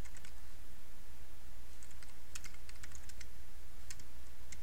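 Computer keyboard keys clicking in short runs of keystrokes as a command is typed, over a steady low hum.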